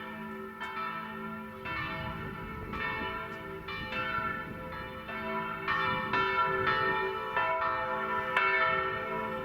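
Church bells ringing, a new strike about once a second with each bell ringing on under the next, at several different pitches.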